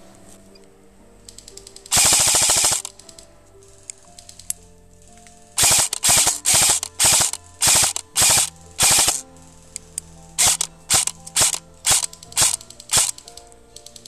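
Airsoft rifle firing on full auto, with its rapid mechanical clatter: one longer burst about two seconds in, then about fourteen short bursts, each under half a second, over the second half, the last ones coming quicker and shorter.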